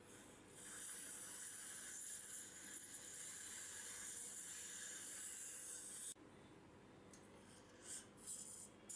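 Dental surgical suction hissing steadily, then cutting off sharply about six seconds in, followed by a few short hissing slurps.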